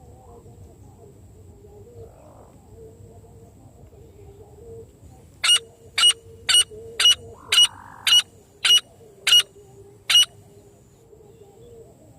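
Francolin (teetar) call: a run of nine short, sharp, shrill notes at about two a second, starting about five seconds in.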